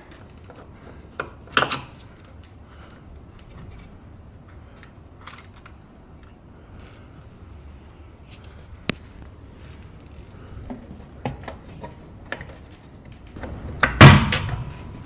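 Scattered knocks and clicks of hands handling cables and the metal casing of a wall-mounted solar inverter, with one heavy thump about fourteen seconds in as a hand presses at the inverter's edge.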